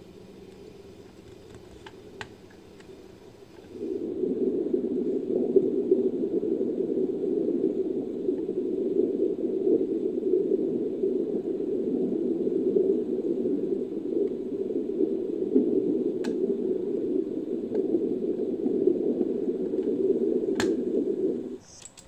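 Made-up creature call for an 'African manatee', built from manatee and Desmostylus sound recordings: a long, low, rough drone that starts about four seconds in, holds steady for about seventeen seconds and cuts off just before the end.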